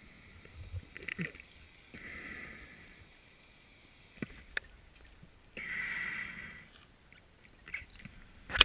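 Scuba diver breathing underwater through a regulator: two breaths, each a second-long hiss with bubbling, about three and a half seconds apart, with a few faint clicks between. A sharp knock near the end.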